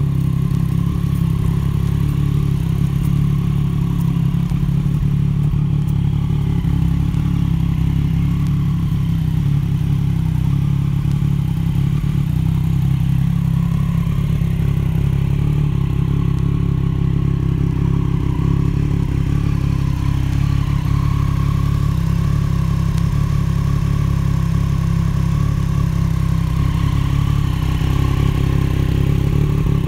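A 2018 Triumph Street Triple 765 RS's 765 cc inline three-cylinder engine idling steadily through an SC Project titanium exhaust, with no revving.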